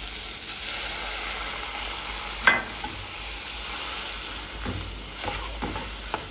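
Onion-tomato masala sizzling in a non-stick kadai as water is poured in, then stirred with a metal slotted spatula scraping the pan. A sharp knock comes about two and a half seconds in, with a few lighter clicks near the end.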